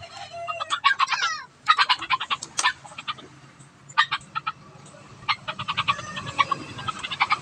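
Chickens clucking in short rapid bursts, with a longer squawking call about a second in.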